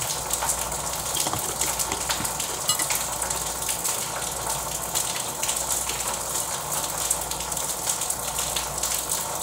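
Steady rushing hiss with many faint scattered clicks, even in level throughout.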